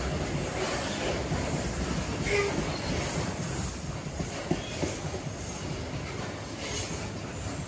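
Coal freight train's wagons rolling past on the rails, a steady rumble of wheels on track with a brief wheel squeal about two and a half seconds in.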